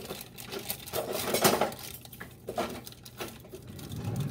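A plastic bag of dry cake mix being shaken and tapped out over a glass mixing bowl, giving several short knocks and clinks against the glass along with plastic rustling.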